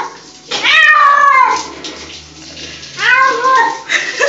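Domestic cat yowling loudly in long, drawn-out meows, each dropping in pitch as it ends. There are two full calls, the first about half a second in and the second about three seconds in, and a third starts right at the end.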